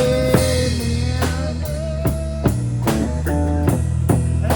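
Live blues-rock band playing: guitar, bass and drum kit keeping a steady beat, with a held, wavering note carrying over at the start.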